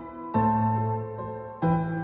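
Slow background music: sustained chords, a new one struck about every second and a quarter, each ringing and fading.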